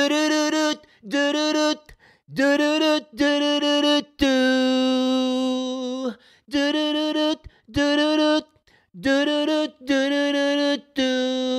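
A single voice sings a run of about ten notes without accompaniment and without clear words, mostly on one pitch, with short breaks between them. Two notes are held longer than the rest, one in the middle and one near the end.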